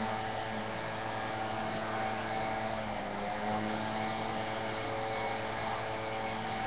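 Steady engine-like drone with several held tones that drift slowly in pitch, most likely computer-game audio playing through the computer's speakers.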